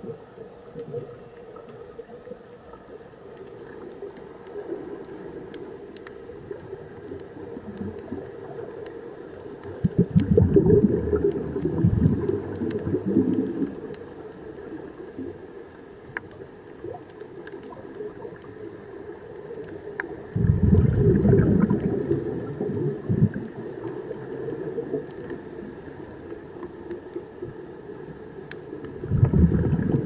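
Underwater sound of a scuba diver's exhaled bubbles rushing out of the regulator in three bursts of two to three seconds each, about ten seconds apart, the last starting right at the end. Between the bursts a steady underwater hiss with scattered faint clicks.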